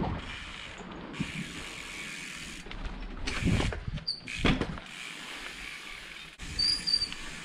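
Inspired Fourplay trials bike coasting, its rear freehub ratchet ticking steadily over tyre noise. A few heavier thumps come as the wheels hit bumps and drop onto dirt, and a brief high squeal sounds near the end.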